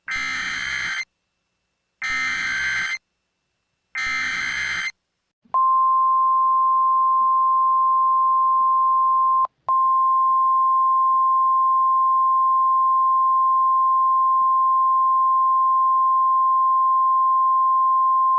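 Emergency Alert System SAME header: three one-second bursts of digital data, a second apart. About five and a half seconds in, the steady single-pitch NOAA Weather Radio 1050 Hz warning alarm tone begins and holds for about thirteen seconds, with a brief break around nine and a half seconds in. Together these signal the start of a new weather alert.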